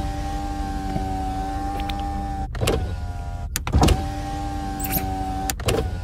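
Power window in a limousine running twice: the electric motor whines steadily for about two and a half seconds and stops with a clunk, then after another clunk runs again for about a second and a half and stops with a clunk, over a low steady rumble.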